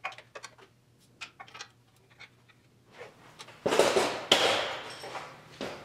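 Scattered light clicks and taps, then a loud rustling scrape lasting about two seconds, starting sharply twice, followed by one more short scrape near the end: someone moving about and handling tools under a car.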